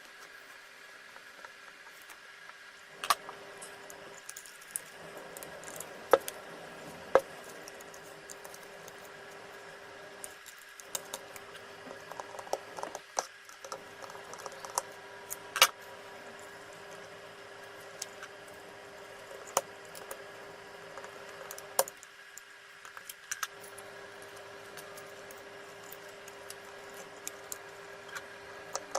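Scattered clicks and taps of small drill parts and hand tools being handled, a dozen or so sharp knocks among lighter ticks, over a faint steady hum.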